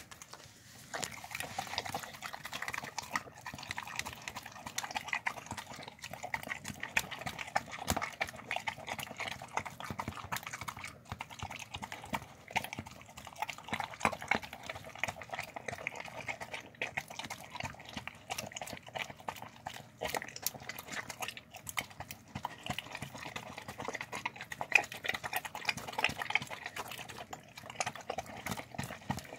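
A dog eating pasta with shredded chicken from a plastic tub, close up. Steady wet chewing, smacking and slurping that starts about a second in and continues with many sharp clicks.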